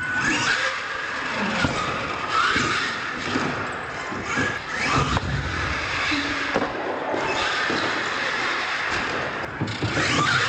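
Solid-axle R/C monster truck running hard over ramps: its motor's pitch rises and falls as the throttle is worked, and it knocks down hard on landings, with sharp impacts about one and a half and five seconds in.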